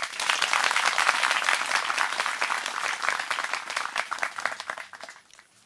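Audience applauding: many hands clapping together, dying away about five seconds in.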